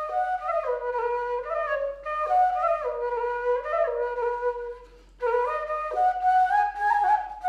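Background music: a solo flute playing a slow melody, notes sliding from one pitch to the next, with a short break about five seconds in.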